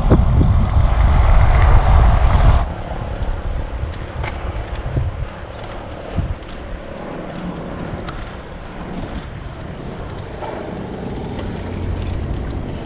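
Wind rushing over the microphone of a road bike moving at speed, with road noise under it. It is loud for about the first two and a half seconds, then drops suddenly to a quieter, steady rush.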